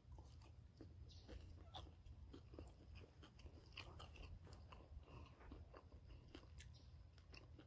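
Faint chewing of grilled chicken close to the microphone: soft, irregular mouth clicks and smacks.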